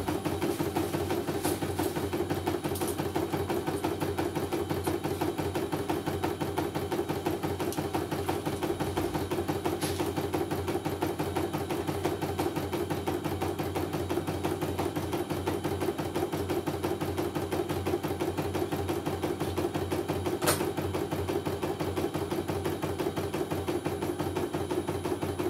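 CNY computerized embroidery machine stitching a design at speed: a rapid, even needle chatter with a couple of sharper clicks along the way, running smoothly without trouble.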